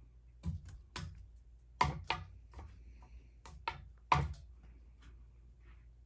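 A cat batting at the blades of a spinning ceiling fan: a string of irregular knocks and taps, the loudest around two and four seconds in.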